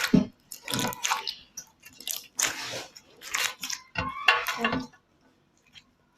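Slime being squished and pulled apart by hand: a series of short squelches.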